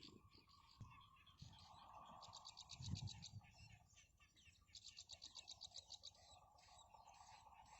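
Faint bird chirping: two rapid trains of high chirps, about ten a second, each lasting about a second, with a soft low thump between them.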